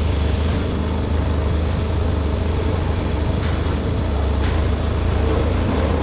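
Slant-bed CNC lathe running: a steady low machine hum with a faint, steady high whine above it.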